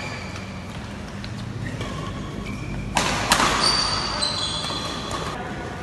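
Badminton doubles rally: racket strikes on the shuttlecock and shoes squeaking on the court floor, ringing in a large hall. About three seconds in comes a sudden loud burst with a sharp hit, the loudest moment, followed by a run of squeaks.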